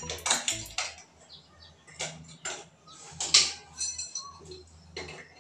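Irregular clicks and scrapes of hands handling plastic and metal plumbing fittings under a wall-hung wash basin while connecting its supply pipe.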